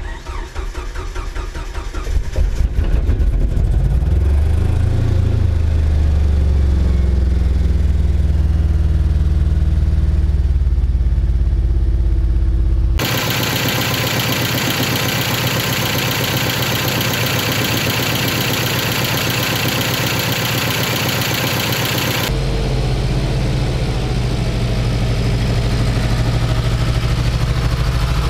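1993 Jeep Wrangler YJ engine cranking on the starter, catching within about three seconds and settling into a steady idle. It runs rough because spark plug wires 3 and 4 are swapped. Partway through, it is heard close up from the engine bay with a loud hiss, then the steady idle returns.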